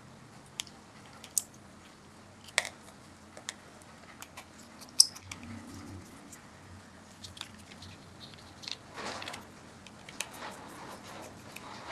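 Scattered sharp clicks and taps of small plastic parts as a Nokia Lumia 820 smartphone is taken apart by hand, with a brief rustle about nine seconds in.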